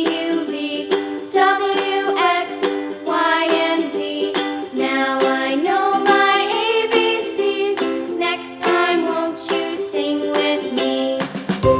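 Background music: an upbeat children's song with plucked ukulele and a singing voice.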